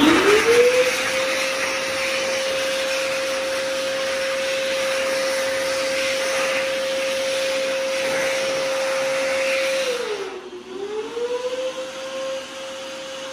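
World Dryer VERDEdri high-speed hand dryer starting up as a hand goes under it: the motor whine rises quickly to a steady high pitch over a loud rush of air that lasts about ten seconds. Then the air rush drops off, the whine dips and climbs back, and near the very end it starts to wind down.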